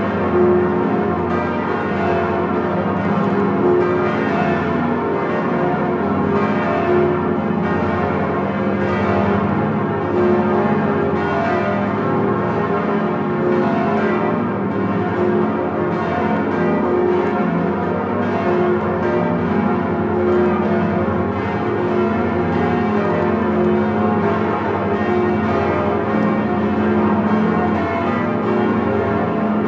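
The swinging bells of Notre-Dame de Paris, bourdons included, ringing together in full peal. Many bells strike in quick overlapping succession, so the deep hum and the higher tones blend into one continuous, unbroken sound.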